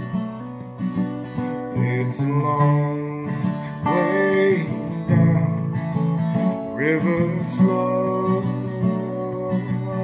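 Acoustic guitar strummed through a slow song, with a man's voice singing a few held, wordless notes over it that slide in pitch.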